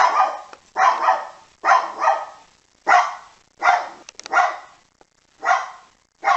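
Poodle barking repeatedly: about eight sharp, separate barks at roughly one a second.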